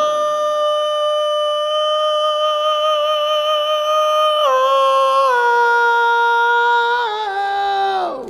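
A single unaccompanied voice sings a high sustained "woo" held steady for about five seconds, then steps down in pitch several times and stops near the end. The note is sung as a high-note vocal demonstration.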